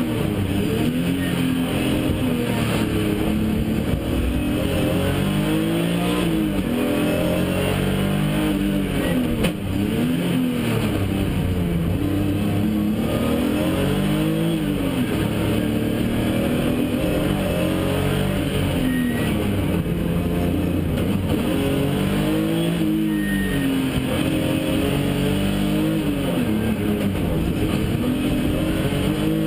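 BMW E36 race car's engine heard from inside the cabin, revving up and dropping back over and over, its pitch climbing and falling every couple of seconds as the car accelerates, shifts and brakes through the course.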